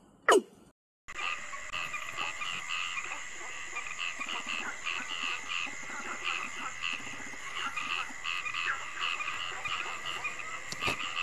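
A loud, short falling call in the first half second, then a brief silence, then a dense chorus of frogs calling at night: overlapping croaks pulsing about three times a second over a steady high-pitched trill.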